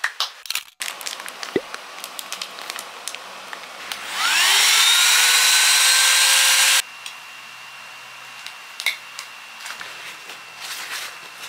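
Handheld electric vacuum pump on the valve of a vacuum storage bag, drawing the air out of packed clothes: its motor whirs up in pitch about four seconds in, runs steadily for under three seconds, then stops suddenly. Soft handling clicks and rustles come before and after.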